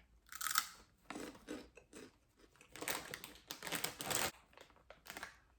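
A snack bag crinkling and someone crunching and chewing Hot Lips snacks, in several short bursts.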